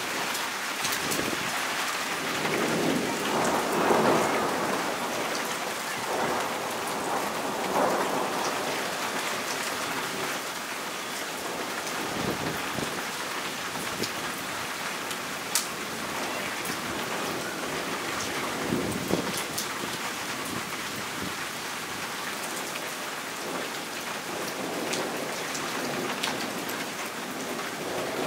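Heavy rain falling steadily during a violent thunderstorm, with close, sharp drop taps scattered through it. Thunder rumbles in swells, loudest about four seconds in and again around eight seconds.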